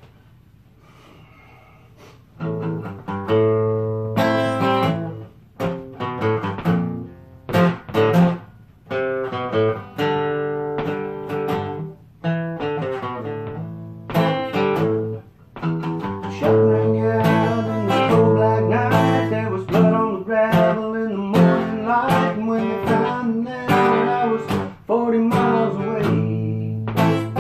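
Acoustic guitar playing an instrumental intro of picked notes and chords, starting about two seconds in.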